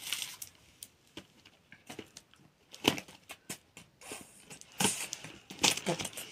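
Packing tape on a cardboard box being cut and torn open by hand, with scattered clicks, scrapes and rustles. The loudest bursts come about three seconds in and again near the end.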